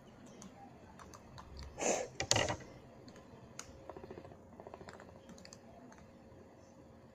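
Two small plastic spinning tops (mini Beyblades) spinning on a wooden board, clicking as they knock and rattle against each other, with two louder clatters about two seconds in and a quick run of clicks about four seconds in.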